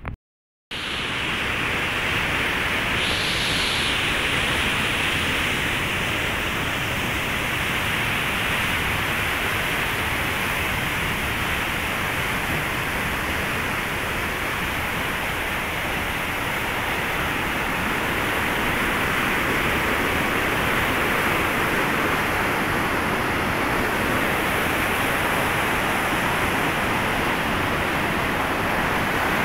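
Fast mountain river rushing over boulders in white-water rapids: a loud, steady rush of water that starts after a brief break near the beginning and holds without change.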